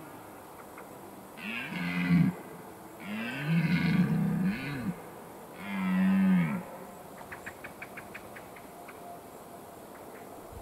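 Red deer stag roaring during the rut: three deep, hoarse roars, the middle one the longest. A quick run of faint ticks follows.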